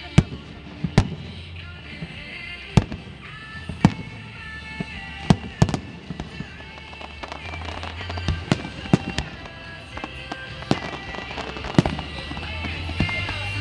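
Aerial fireworks bursting with a dozen or so sharp bangs at irregular intervals, over music playing steadily underneath.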